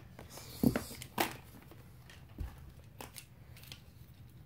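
Packaging and parts of a bike seat being handled: several separate short clicks and knocks, the loudest about a second in, with a dull thump about halfway through.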